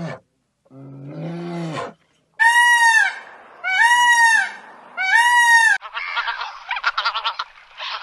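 Animal calls in sequence: a brown bear's low moaning call in the first two seconds, then three loud wailing calls from an Indian peafowl (peacock), each rising and falling. Then greylag geese honking rapidly for the last two seconds.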